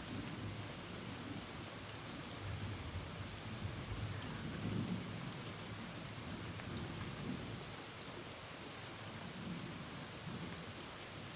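Heavy rain drumming steadily on a tin roof, under low rolling thunder that swells and fades every few seconds. A few faint high chirps sound over the rain.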